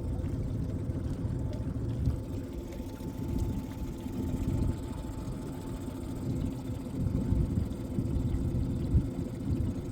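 Small boat outboard motor running steadily at low speed, a low rumble with a faint steady hum.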